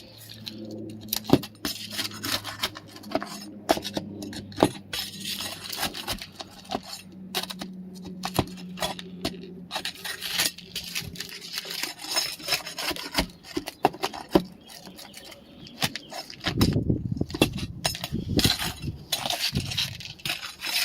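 Asphalt roof shingle being worked loose by hand: irregular scraping, rubbing and sharp clicks and taps as it is pried up and its nails are pulled. A faint steady hum runs through the first half, and a low rumble comes in near the end.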